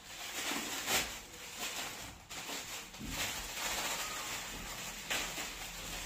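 Clear plastic polybag around a packed T-shirt crinkling and rustling as it is handled, with a few short sharp crackles.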